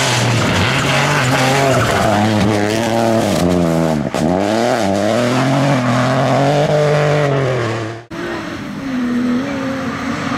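Peugeot 208 rally car's engine revving up and down hard as it drives the stage, with a sudden lift off the throttle about four seconds in before it pulls again. Just after eight seconds it cuts to a second rally car, a BMW E30, whose engine is quieter and wavers in pitch.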